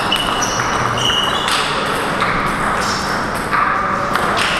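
Table tennis rally: the ball clicks off the rackets and the table at irregular intervals, with a few short high squeaks.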